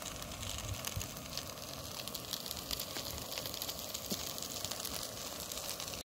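Chicken chow mein sizzling in a frying pan on a Primus gas camping stove: a steady hiss with many fine crackles.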